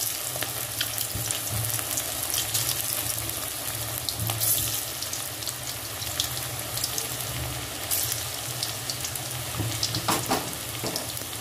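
Batter-coated chicken pakoras deep-frying in hot oil in a kadai: a steady sizzle full of small crackles and pops, as more pieces are dropped into the oil one by one.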